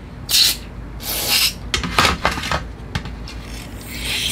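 Aerosol carburetor cleaner (Gumout) hissing out in several short spray bursts through a thin extension straw into the fuel passages of a small-engine primer bulb plate, with a longer burst near the end, to flush clogged gunk out. Light clicks of the plastic plate being handled come between the bursts.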